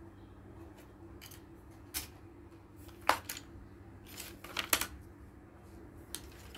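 Flat cut-out model-kit pieces being sorted and handled by hand: light rustling and a scattering of sharp clacks, the loudest about three seconds in and several close together a little later, over a steady low hum.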